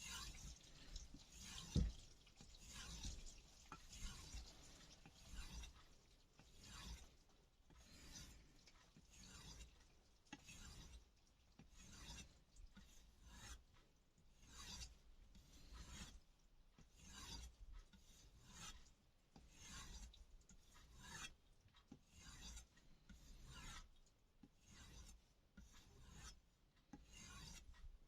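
Kai Shun chef's knife being drawn back and forth on a strop, a soft rubbing stroke a little over once a second to finish and polish the edge after the stones. A single sharp knock about two seconds in.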